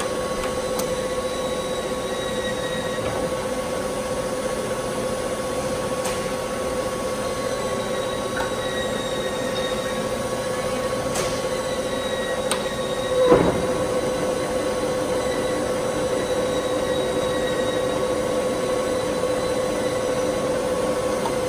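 Warner & Swasey 4A gap-bed turret lathe running, its headstock giving a steady whine. There are a few faint clicks, and about two-thirds of the way through comes one brief louder swoop in pitch.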